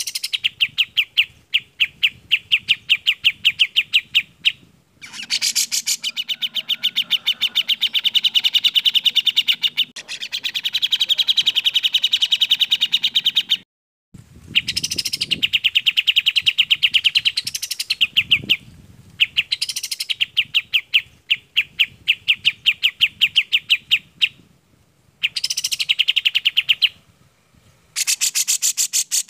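Recorded song of kapas tembak and cucak jenggot, two songbirds kept as cage birds: long runs of fast, evenly repeated sharp high notes, broken by short pauses and a few fuller sweeping phrases.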